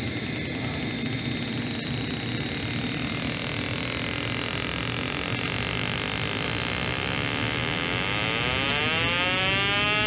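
Handheld gas detector buzzing at a water heater's draft hood, its tone rising steadily in pitch and getting louder from about four seconds in as it picks up furnace exhaust back-drafting out of the hood. Under it runs the steady whir of the furnace's inducer fan.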